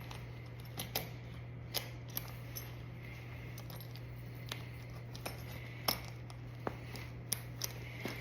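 Scattered light clicks and clacks, about a dozen spread over several seconds, from football pads being handled and put on, over a steady low hum.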